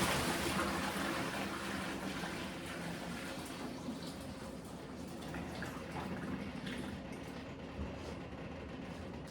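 Kitchen tap running water into the sink, a steady rush that slowly gets quieter, with a few light knocks, then shut off suddenly at the end.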